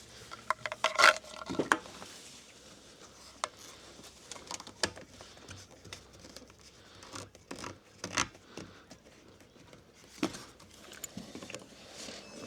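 Scattered light clicks, taps and rubbing, the sound of small parts and tools being handled.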